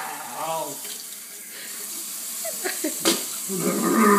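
Kitchen tap running into a stainless-steel sink while a person bent over it makes short strained vocal sounds, struggling with a mouthful of dry cinnamon. There is a single sharp click about three seconds in.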